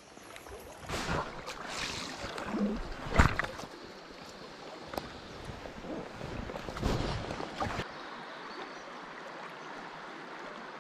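River current rushing over a shallow riffle, with rumbling buffets and knocks on the microphone for most of the first eight seconds, loudest in a thump about three seconds in. After that it settles into a steady, even hiss of flowing water.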